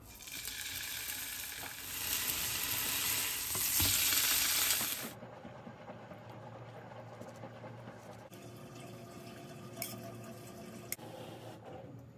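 Food sizzling in a hot pan for about five seconds, growing louder before cutting off abruptly. Then quieter scraping of a spoon spreading pesto over bread, with a few light clicks.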